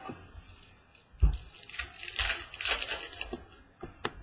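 A thump about a second in, then a trading-card pack's foil wrapper crinkling and tearing for about two seconds, and a single click near the end.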